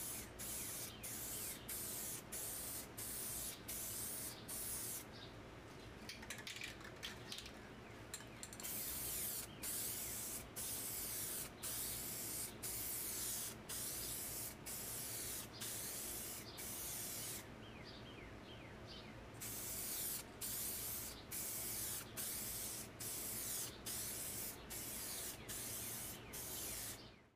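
Aerosol spray can of automotive paint hissing in quick short bursts, about two or three a second, with two pauses of two or three seconds. The first coat is being laid on.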